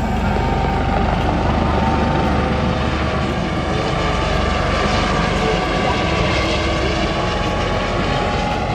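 Aircraft running overhead: a steady, loud drone of engine and airscrew noise.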